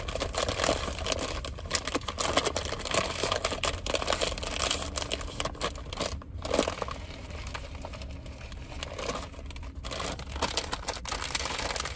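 Close-miked chewing and lip smacking, with a food wrapper crinkling.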